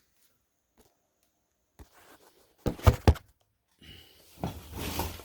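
Three quick thumps close together as a cardboard box is handled, followed by cardboard rustling and scraping.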